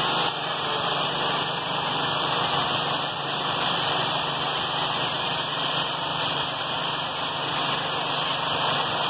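Gas-welding torch flame hissing steadily at the metal of a car body, over a faint low hum.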